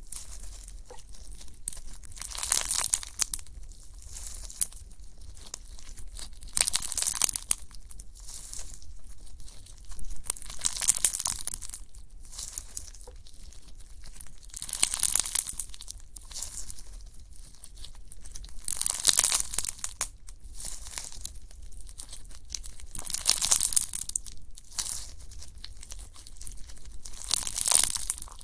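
Slime being pressed and squeezed by hand, in loud bouts of close-up noise about every four seconds, with quieter handling between them.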